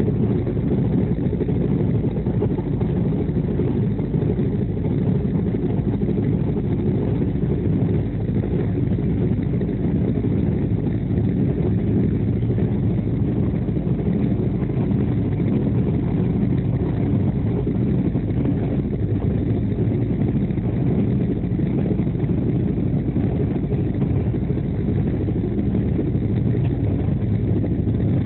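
Steady low rumble of the Duronto Express passenger train running at speed, heard from inside a coach, with no change throughout.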